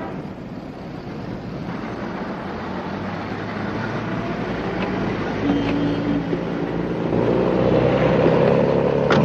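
Car engine running with road noise as the car drives along and pulls up, growing louder in the second half.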